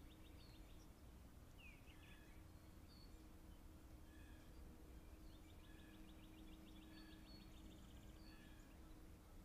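Faint songbirds: a rapid trill of evenly repeated notes at the start and again about five seconds in, with scattered short chirps between, over a faint steady low hum.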